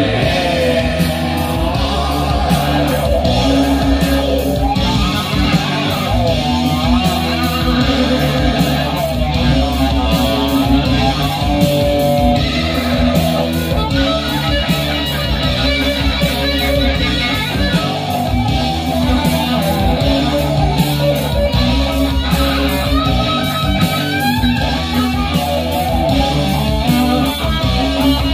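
Early-1970s hard rock of the "leather biker metal" kind, with electric guitar and bass, played loud through a hi-fi system driven by AGD Production Audion tube monoblock amplifiers and heard through the room's floor-standing loudspeakers.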